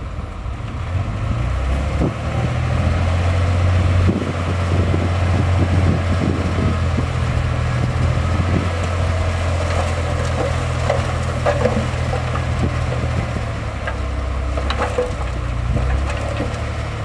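Heavy diesel engine of a bulldozer running steadily under load, with scattered metallic clanks in the second half.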